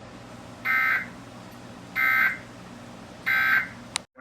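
Three short Emergency Alert System end-of-message data bursts (the SAME digital 'NNNN' tones), evenly spaced about a second and a quarter apart, signalling the end of the broadcast alert. A short click follows just before the end.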